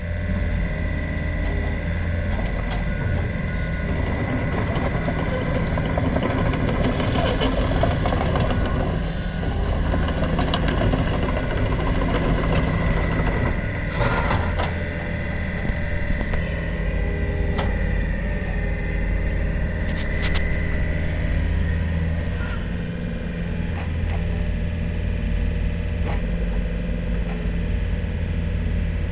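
Diesel engine of a Komatsu PC55MR-3 midi excavator running steadily, with a thin high whine over the engine note and a few sharp clanks about halfway through.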